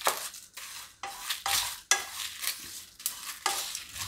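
Whole spices (dry red chillies, bay leaves, coriander seeds and grated dry coconut) being stirred with a spatula in a kadai as they roast until fragrant. Each stroke makes a dry rustling scrape against the pan, about two strokes a second.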